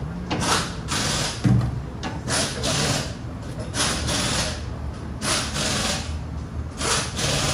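Back-and-forth scraping or scrubbing strokes of a hand tool on metal, coming in pairs about every second and a half.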